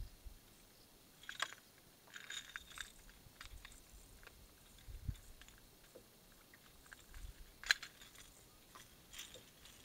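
Scattered light clicks and scrapes of a hook and lure being worked free from a bass's mouth by hand, with a few soft low knocks; the sharpest click comes about three-quarters of the way through.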